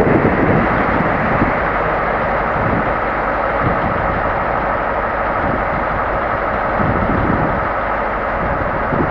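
Two English Electric-engined diesel locomotives, a Class 37 and a Class 50 working in multiple, running under power as they move away, with a steady whine over the engine sound that eases slightly as they recede.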